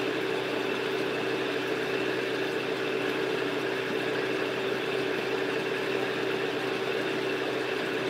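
Steady machine hum with one constant mid-pitched tone and a hiss over it.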